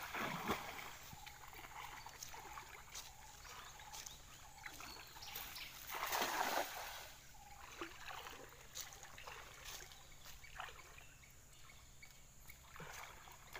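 Splashing and trickling of shallow river water around a wading person throwing a cast net, with the loudest splash about six seconds in as the net comes down on the water, then small scattered splashes as it sinks and is drawn back.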